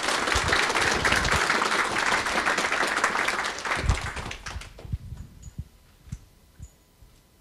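Audience applauding, fading out about four and a half seconds in, followed by a few soft low thumps and clicks.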